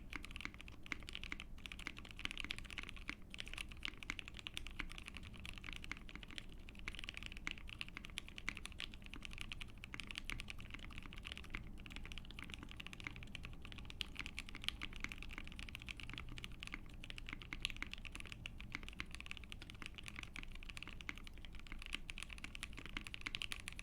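Continuous typing on an Ai03 Vega mechanical keyboard with a POM plate, Soho linear switches lubed with Krytox 205g0, and ePBT PBT keycaps. The keystrokes are a dense, steady run of clacks.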